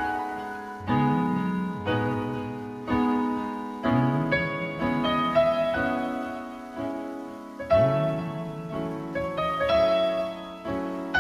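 Karaoke backing track in an instrumental break: piano-like keyboard chords struck about once a second over a low bass line, with no voice.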